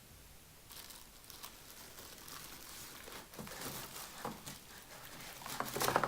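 Packaging being handled: crinkling and rustling with small knocks, getting louder near the end.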